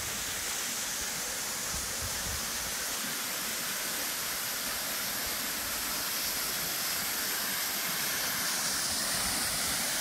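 Steady rushing of the Gostiljski waterfall, water pouring down a rock face into the pool below.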